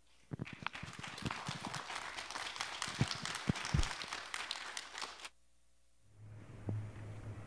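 Congregation applauding, many hands clapping for about five seconds, then cutting off abruptly. A faint steady low hum follows near the end.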